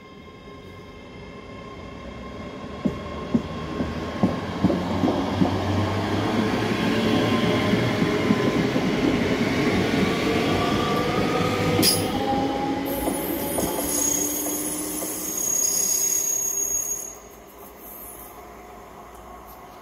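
ScotRail Class 385 electric multiple unit passing through the station. Its rumble and motor whine build as it approaches, with a quick run of wheel clicks over rail joints a few seconds in. As it goes away its tones slide down in pitch, and the sound drops off sharply near the end.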